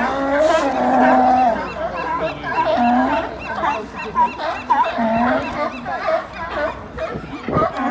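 California sea lions barking over one another: one long, drawn-out bark in the first second and a half, then a string of shorter barks from several animals.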